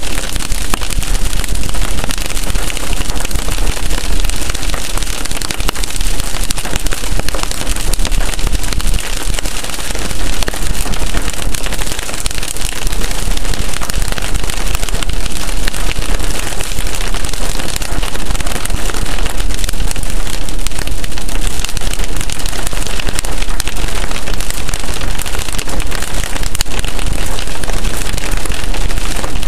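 Rain pattering hard on a moving car's windshield and roof, mixed with tyre noise on wet pavement, heard from inside the car: a loud, dense, steady hiss of fine ticks.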